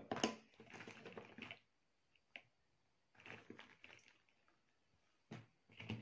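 Faint rustling and soft clicks of fresh green beans being handled and lifted out of a plastic colander, in a few short bursts.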